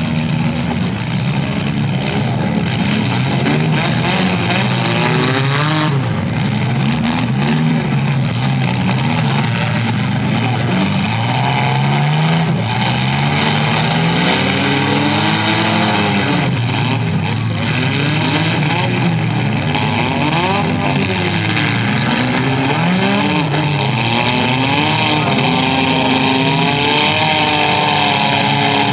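Engines of several compact derby cars running and revving at once, their pitches rising and falling continually as they accelerate and back off.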